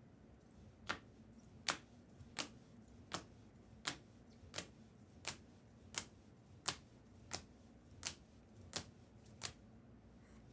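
A steady run of about thirteen sharp clicks or taps, evenly spaced at roughly three every two seconds, starting about a second in.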